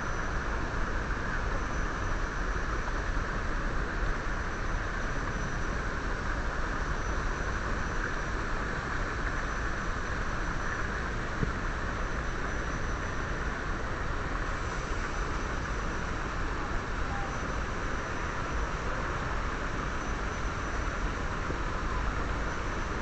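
Steady rushing background noise with no distinct events, and a faint high whine that comes and goes every second or two.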